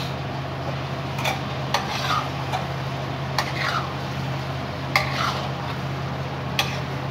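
Metal spatula stirring and scraping mutton chops on a hot iron tawa, striking the pan with sharp clanks about five times, over a steady sizzle and a low hum.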